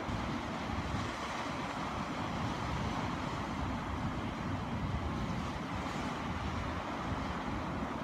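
Sea waves breaking and washing over a rocky shore of black volcanic rock, a continuous rush of surf, with wind buffeting the microphone as an uneven low rumble.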